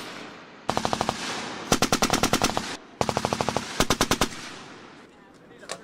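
Belt-fed machine gun firing several short bursts of automatic fire, about a dozen rounds a second, with the reports echoing after each burst. The firing stops a little past the middle.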